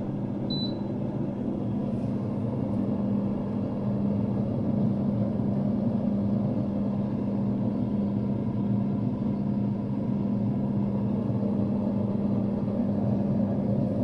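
LLIVEKIT 26-litre air fryer oven running: a steady hum from its fan with a strong low tone, after a short high beep about half a second in.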